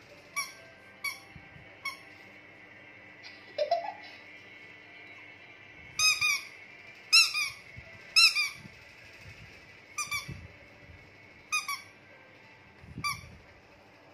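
Squeaky rubber dinosaur toy being squeezed: about nine short, pitched squeaks at uneven intervals.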